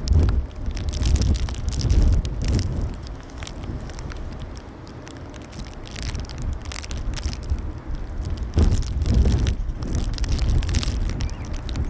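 Strong gusty wind buffeting the microphone, a rumbling low roar that rises and falls in gusts, with crackling on top; it eases about four seconds in and picks up again near the end.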